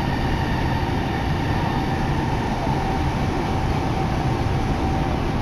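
Subway train running between stations, heard from inside the passenger car: a steady low rumble of the wheels on the rails with a thin, steady whine above it.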